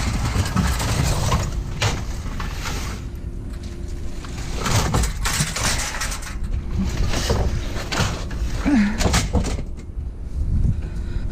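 Scattered clanks and rattles of scrap metal being handled and moved, over a steady low rumble.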